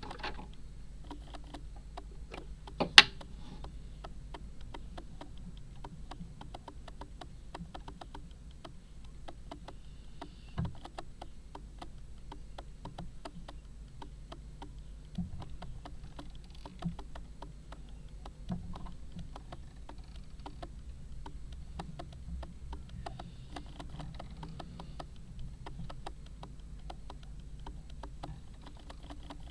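Camera autofocus clicking: a fast run of faint ticks, with one sharp, louder click about three seconds in, over a low steady hum.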